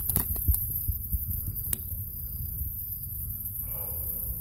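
Low rumbling thumps of a phone being handled close to its microphone, with a few light clicks and knocks in the first half-second and one more a little before the middle, as a fish is picked up off a wooden deck.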